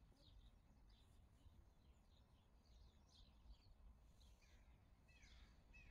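Near silence outdoors with faint bird chirps scattered throughout, and a few short falling whistled notes near the end.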